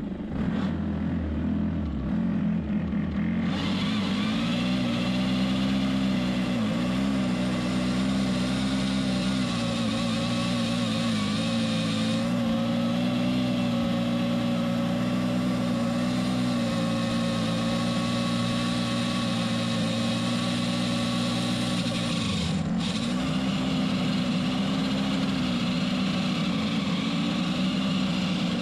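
Four-stroke gas pole saw running at high throttle while its chain cuts a dead branch. It revs up about three and a half seconds in and holds there, with the pitch sagging briefly under load twice, the second time about two-thirds of the way through.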